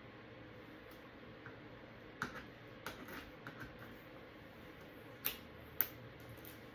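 Scattered light clicks and ticks of small parts being handled during TV disassembly, with two sharper clicks near the end, over faint room hiss.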